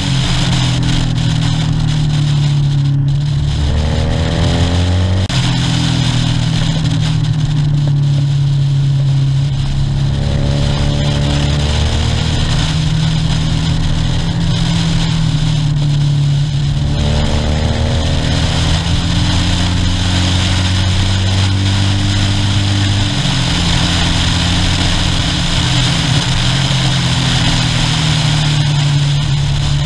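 Motorcycle engine running while riding, heard with the wind rushing past. The engine note changes with throttle and gears, dropping lower briefly about three seconds in and again for several seconds past the middle.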